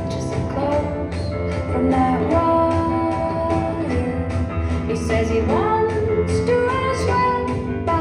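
Recorded song with a woman singing and guitar, played over a hall's speakers. Her voice swoops up into a long held note about five and a half seconds in, over a steady bass line.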